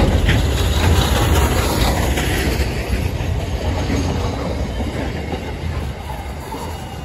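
Freight train wagons rolling past, steel wheels rumbling and clattering on the rails, the sound fading through the second half as the last empty wagons pass and move away.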